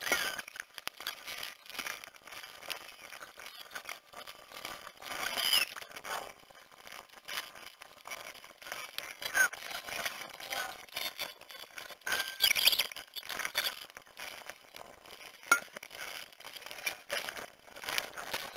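Garage work sped up about thirty times: a fast, high-pitched jumble of tool and metal-part clinks and scrapes, with short chirpy squeaks from sped-up sounds.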